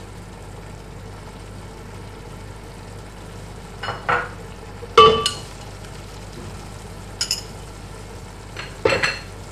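A wooden spatula stirring and knocking against a metal pot of onions, garlic and tomatoes cooking in oil, over a steady low sizzle. There are a handful of knocks; the loudest, about halfway, rings briefly off the pot.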